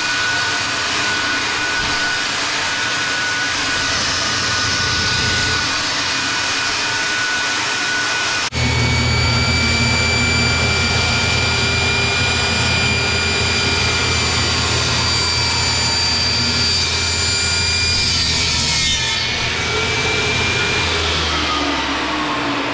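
Table saw running and cutting through MDF sheet, a steady machine whine. About eight seconds in it turns abruptly louder with a deep hum, then winds down and stops near the end.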